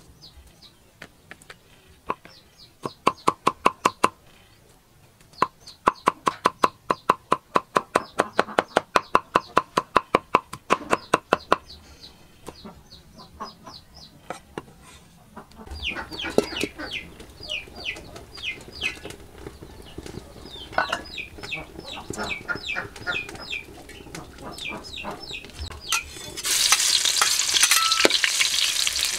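Cleaver chopping garlic on a round wooden chopping block, rapid even strokes of about five a second. About three quarters of the way in, the garlic goes into hot oil in a steel wok and sizzles loudly as it is stirred with a spatula.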